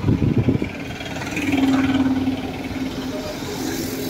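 Motor vehicle engine noise mixed with people's voices in the background.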